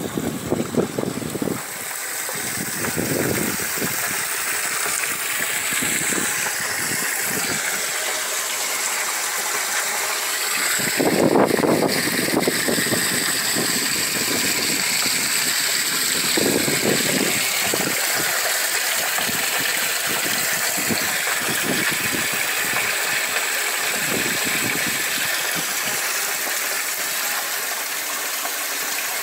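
Water running and splashing steadily through a home aquaponics system, falling from its drains and pipes into the fish tank and sump, with a few brief low rumbles of wind on the microphone.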